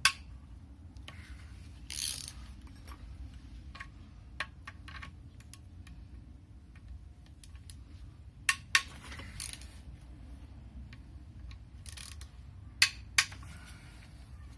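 A hand ratchet clicking as it works T30 Torx bolts out of a VW 1.8T engine's camshaft end caps. Several sharp metal clinks rise above the clicking.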